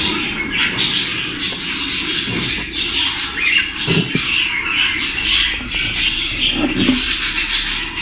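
Cockatiel nestlings calling: a rapid, unbroken run of short, harsh squawking calls, the begging calls of young chicks in the nest box.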